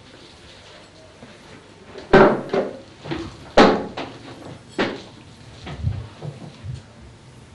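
Handling noise: a run of sharp knocks and clunks, loudest about three and a half seconds in, with softer rustles and taps in between.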